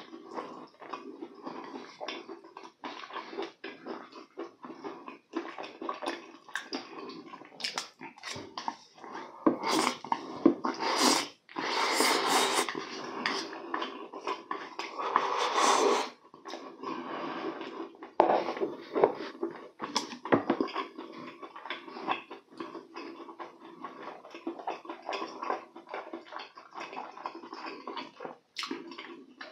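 Close-miked eating of spicy stir-fried noodles: wet chewing and slurping with many small clicks, and louder, longer slurps between about ten and sixteen seconds in.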